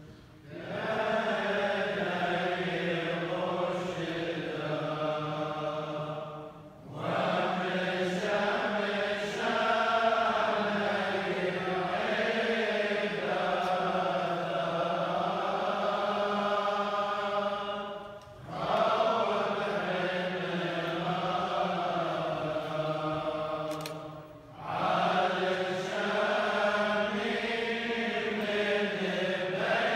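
Liturgical chanting of Chaldean funeral prayers: long sustained phrases on a slowly wavering melody, broken by short pauses for breath about 7, 18 and 24 seconds in.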